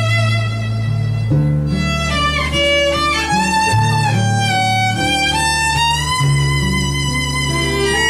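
Instrumental interlude of a slow love song: a lead melody of long held notes, sliding between pitches, over low bass notes and guitar accompaniment.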